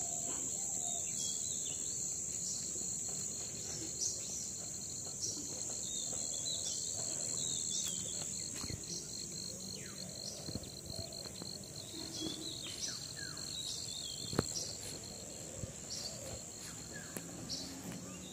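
Steady high-pitched drone of insects in the garden, with short bird chirps scattered throughout and a single click about fourteen seconds in.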